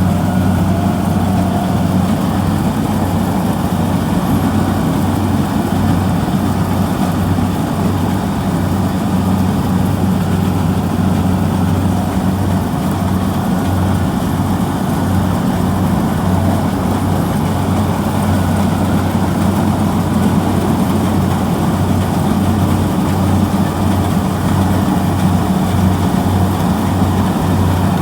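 Diesel engine of a Kubota DC-70G rice combine harvester running at a constant speed, a steady low hum that does not rise or fall.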